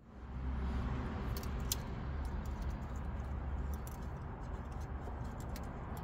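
Small sharp plastic clicks and taps as a leather gear gaiter and its trim surround are handled and pressed into a car's centre console, over a steady low rumble.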